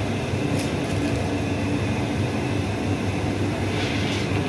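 Double-chamber popcorn roaster machine running, its drum turning with a steady mechanical rumble and hum and some light rattling near the end.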